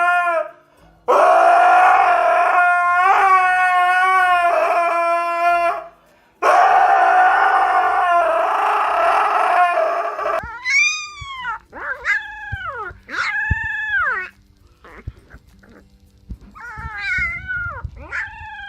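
A dog howling: two long, held howls of several seconds each, then a run of shorter howls that rise and fall in pitch.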